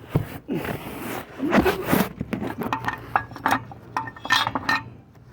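Metal parts of a van's spare-tire carrier hook and bracket clinking and clicking as they are worked loose by hand, a quick run of light clicks in the second half. A brief voice sound about a second and a half in.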